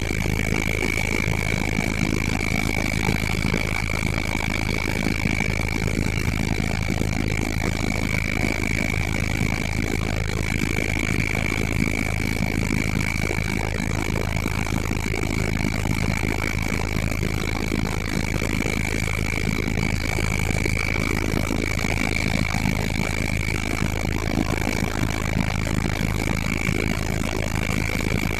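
Helicopter running steadily, a constant low drone with a steady high whine over it.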